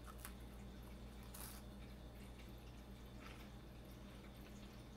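Faint biting and chewing of a Roshen Konafetto cocoa-filled chocolate wafer roll, whose crunchy, flaky shell gives a few soft crackles, the clearest about a second and a half in. A steady low hum runs underneath.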